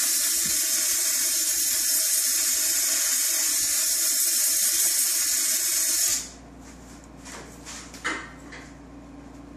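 Compressed-air blow gun blowing chips out of a freshly reamed .308 rifle chamber: a loud steady hiss that starts abruptly and cuts off about six seconds in. A light click follows near the end.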